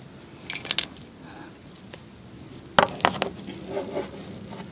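Light metallic clicks and clinks in two short clusters, one about half a second in and a louder one near three seconds, over low background noise.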